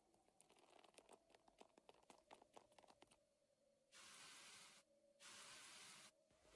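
Near silence broken by faint crackling ticks, then two soft hissing rushes of about a second each.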